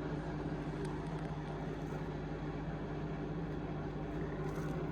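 Indesit IMA862MYTIMEUK washing machine spinning its drum in an intermediate spin: a steady motor hum with an even rushing noise over it.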